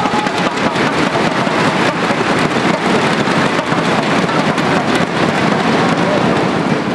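Crowd beating inflatable thundersticks together, a dense, rapid clatter of many hits with no beat.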